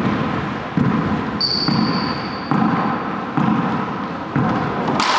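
A racquetball bounced repeatedly on a hardwood court floor, six bounces about one every 0.85 seconds, each echoing off the court walls, with a brief high squeal about a second and a half in and a sharper crack near the end.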